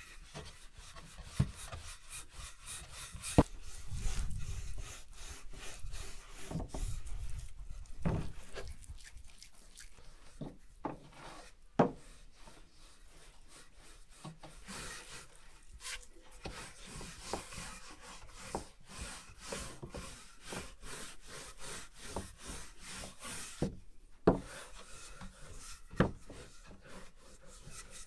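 Food preparation on a wooden board: continual irregular rubbing and scraping, with a few sharper knocks.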